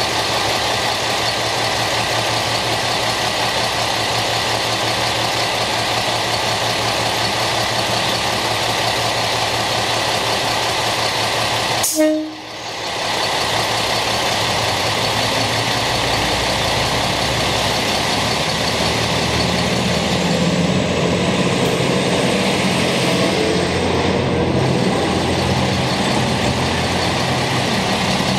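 Diesel railcars running at a standstill, a steady engine drone. About twelve seconds in there is a brief sharp sound with a short low tone. From about sixteen seconds a railcar's diesel engine revs up and rumbles deeper as it pulls away.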